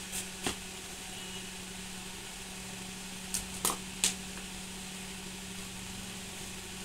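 Clear plastic bottle giving a few short sharp clicks and taps as it is held and pressed on the ground, twice near the start and three times around three and a half to four seconds in, over a steady low hum.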